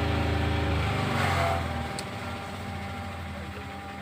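A motor engine running with a steady low hum that fades about two seconds in; a single sharp click comes as it fades.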